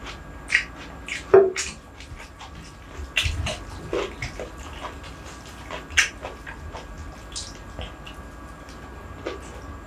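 Close-miked eating sounds: chewing and wet mouth smacks, with light clicks and rustles of rice and crispy topping being mixed in the bowl by spoon and fingers. Scattered short smacks and clicks, the sharpest about a second and a half in and again about six seconds in.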